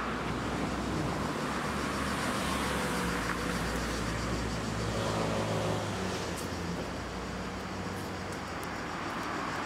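Steady rumble of road traffic with a low hum underneath.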